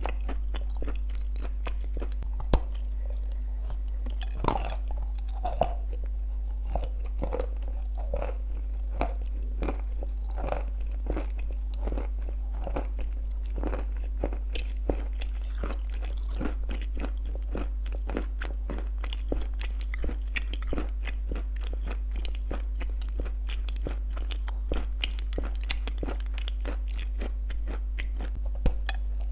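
Close-miked biting, crunching and chewing of shortbread cookies with clay paste: a dense run of sharp crunches with a few louder bites, over a steady low hum.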